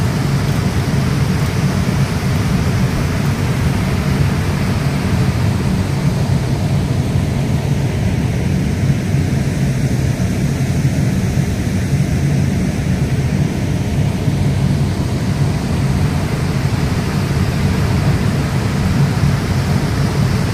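Water rushing steadily through a canal sluice gate, a loud continuous rush.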